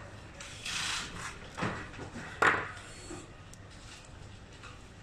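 Handling noise from a PTZ dome camera's module and housing being worked by hand: rubbing and scraping of plastic parts and wires, with a couple of light knocks, the sharpest about two and a half seconds in.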